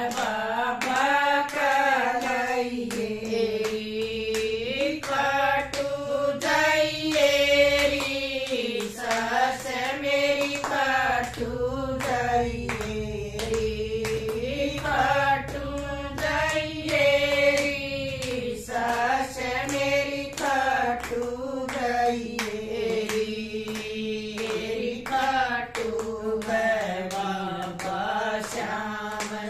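A small group of women singing a Haryanvi devotional bhajan together, keeping time with steady hand-clapping.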